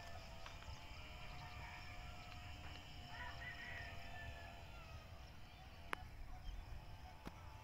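Faint outdoor ambience: distant bird calls, with a few wavering chirps about three seconds in, over a low rumble, and two small clicks near the end.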